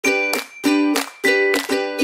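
Background music: a bright melody of short notes in clipped phrases, a new phrase starting roughly every half second.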